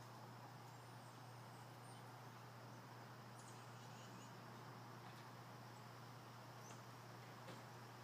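Near silence: quiet outdoor background with a steady low hum and a few faint, short high chirps.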